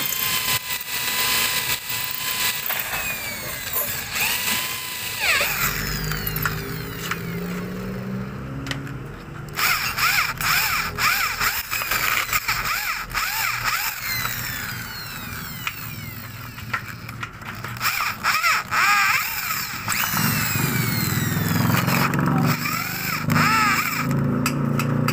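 Electric hand drill with a 7mm bit boring into a snapped steel exhaust bolt in a motorcycle cylinder head, running in stops and starts with the bit squealing in the metal: drilling out the broken bolt so the hole can be re-tapped.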